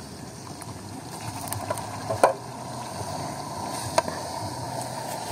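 Chili paste sizzling in hot oil in a wok with frying onions and garlic, stirred with a metal spatula. A few sharp clicks of the spatula on the wok, about two and four seconds in.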